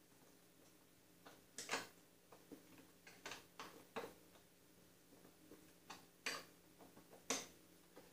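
Scattered sharp metallic clicks of a hand wrench on the self-locking nuts of a garden tractor's rear wheel hub bolts, the loudest about every second or two.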